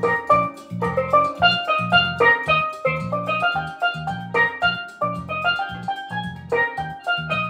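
Soprano (lead) steel pan playing a quick melody, its notes struck with rubber-tipped mallets and ringing briefly, over a low rhythmic bass accompaniment.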